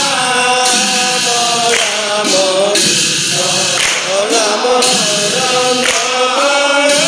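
Assamese devotional nam-prasanga chant in sharan chhanda metre: male voices singing a prayer to Ram in long, held, bending melodic lines.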